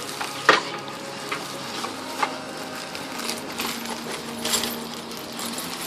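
Metal parts of a gas grill clinking and knocking as they are handled, a handful of separate sharp knocks with the loudest about half a second in and a run of lighter clinks later on.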